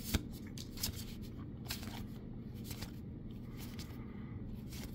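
Magic: The Gathering cards from a freshly opened booster pack being slid off the stack one by one in the hand: a series of short, soft swishes about every half second to second, over a low steady hum.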